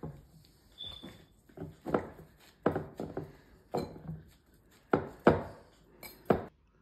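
Hands in plastic gloves kneading a wet kishk mixture of bulgur, jameed and yogurt in a bowl: irregular squelching, slapping strokes, about two a second.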